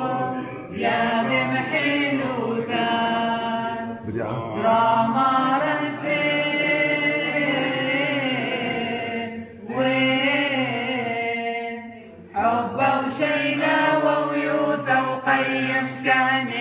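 A group of men and women singing together unaccompanied, a slow chant-like tune in long phrases with short breaks between them.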